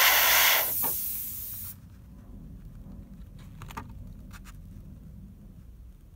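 Iwata Eclipse HP-CS airbrush spraying paint onto a test card in a steady hiss. The hiss fades over the next second and cuts off a little under two seconds in. A few faint clicks follow later.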